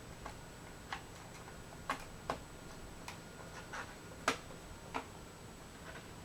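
A series of small, irregularly spaced clicks and taps from hands working on a laptop's parts, the loudest about four seconds in.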